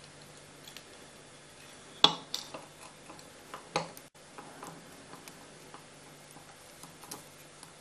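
Small, irregular clicks and taps as a thin tube is worked into the spout of a glass storm-glass barometer globe, the tube and fingertips knocking against the glass. The sharpest click comes about two seconds in, with a few lighter ones after it.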